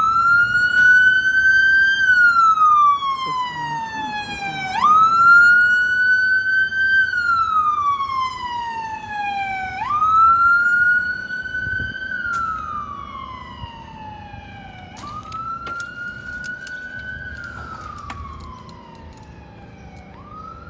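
Fire apparatus electronic siren on wail: the tone jumps up, holds briefly, then slides slowly down, repeating about every five seconds. It grows fainter over the second half as the vehicle moves away.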